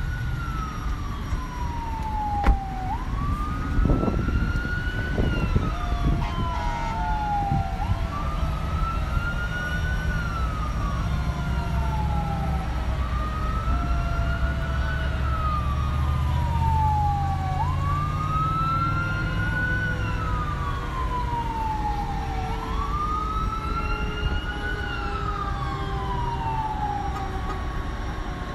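Emergency vehicle siren in a slow wail, its pitch climbing quickly and then sliding slowly down about every five seconds, over a low engine rumble. A couple of sharp knocks come within the first few seconds.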